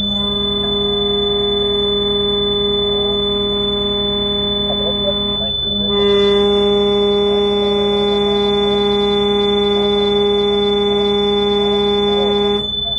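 A loud, steady horn-like tone sounds in two long blasts, about five and a half and six and a half seconds long, with a short break a little past halfway. A constant high-pitched whine runs beneath it throughout.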